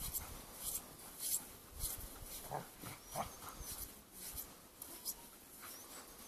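Footsteps crunching in snow, a short crunch about every half-second as a person and dog walk.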